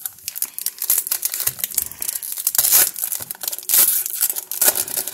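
A foil-wrapped trading-card pack being torn open and its wrapper crinkled, with dense, irregular crackling throughout.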